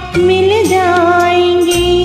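Karaoke backing track of an old Hindi film song playing an instrumental interlude: a held melody line with a short bend about half a second in, over a steady bass that shifts near the end.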